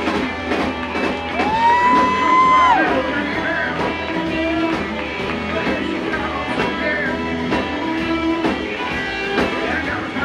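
Live blues band playing a rock-and-roll number with electric guitar, a steady drum beat and singing; about a second and a half in, a long high note bends up, holds for about a second, then drops away.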